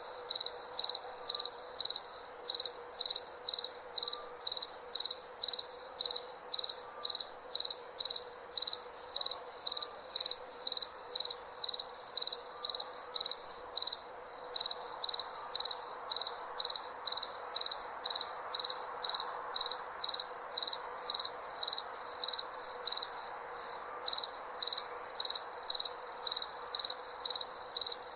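Cricket chirping steadily, about two high chirps a second, over a faint, even background hiss.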